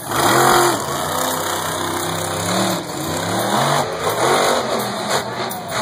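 The Patriot monster truck's supercharged V8 engine revving hard, its pitch rising and falling several times as the truck drives and launches off a dirt jump.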